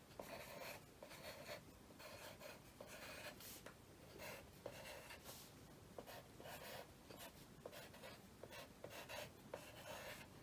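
Pencil writing on paper: faint, irregular scratching strokes as words are lettered.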